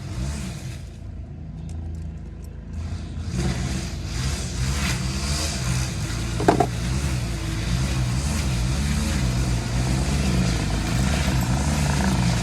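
A motor vehicle engine running steadily, with a short sharp sound about six and a half seconds in.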